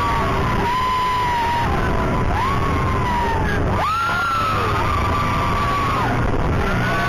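Riders in an open ride car whooping and yelling, several voices at once in long held shouts that rise sharply, hold about a second and fall away, repeated about three times, over the steady running noise of the car.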